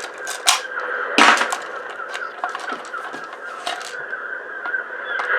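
Plastic and metal parts of an ice maker clicking, knocking and cracking as they are handled and pried apart, with one loud crack about a second in.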